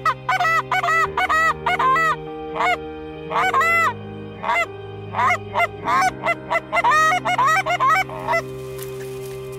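Canada geese honking: a rapid series of short honks, each rising and falling in pitch, that stops near the end. Sustained chords of background music run underneath.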